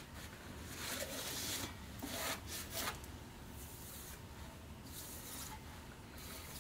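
A cloth rag wiping across the machined deck of a Ford 172 diesel engine block, cleaning it before the head gasket goes on. It comes as a series of brushing strokes, the strongest about a second in and between two and three seconds, with fainter ones after.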